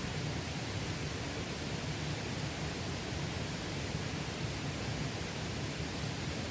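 Mountain stream water rushing steadily, an even, unbroken rush.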